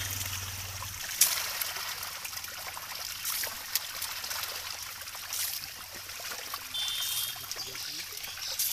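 Constant splashing of many fish thrashing at the water's surface, crowded together in a net, with sharper louder splashes now and then as a plastic basket scoops through them.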